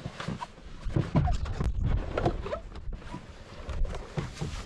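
Rustling of synthetic hunting clothing and backpack gear being handled, with irregular knocks and bumps against the wooden floor and railing of a hunting stand.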